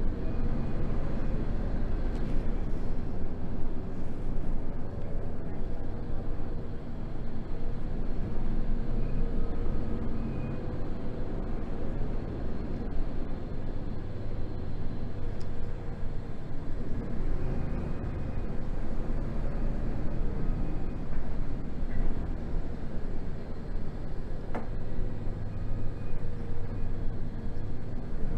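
City bus interior while driving: a steady low rumble of engine and road noise, with the engine note drifting up and down in pitch.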